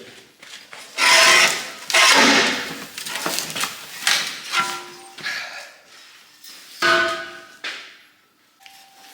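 Hammer blows on steel boiler tubes, a string of sharp metallic strikes, several leaving a short ringing note at the same pitch each time, as the tubes are collapsed and cut back for removal.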